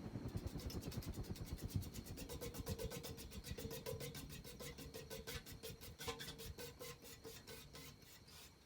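Hunter 1886 Limited Edition ceiling fan's blades whooshing in a fast, regular beat that gradually slows and fades, with a faint motor hum: the fan winding down.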